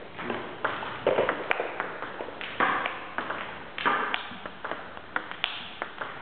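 Table tennis ball struck by rackets and bouncing on the table in a training rally: sharp, irregular clicks, several a second.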